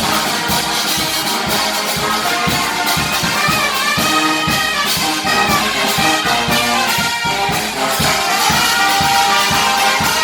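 Worship music with brass horns playing a melody over a steady drum beat.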